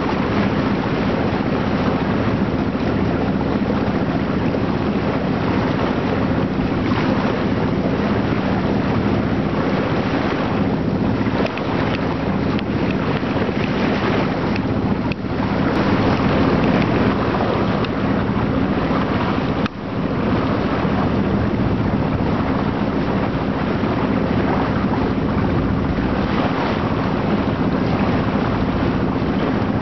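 Wind buffeting the microphone over the rush of water past a moving yacht, with a steady low hum underneath.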